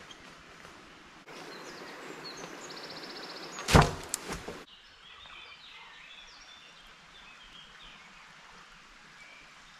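Woodland ambience with short bird calls, broken about a second in by a louder stretch of rustling, with one sharp close knock, the loudest sound, a little under four seconds in and a few smaller knocks just after.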